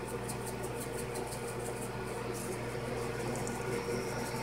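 Dried oregano shaken from a spice shaker onto raw chicken pieces in a glass bowl, heard as faint rapid ticks over a steady electrical hum.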